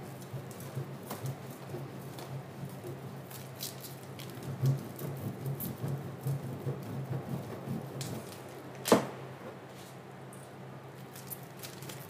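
Irregular scraping strokes of food being grated on a metal box grater, with one sharp knock about nine seconds in.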